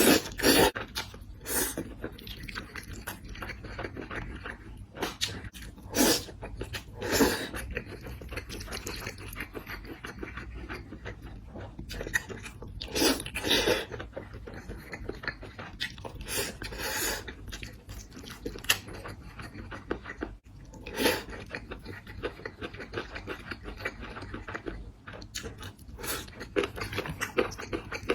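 Close-up chewing of crunchy food, with a loud biting crunch every few seconds over continuous crackly chewing.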